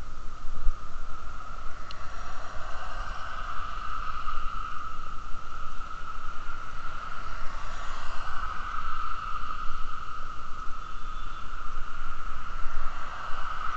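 Riding a bicycle along a roadside cycle path: wind rumbling on the camera microphone under a steady high-pitched hum, with traffic on the adjacent road passing and swelling a little a couple of times.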